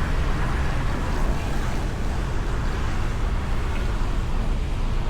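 Steady low rumble of vehicle and traffic noise mixed with wind noise on the microphone.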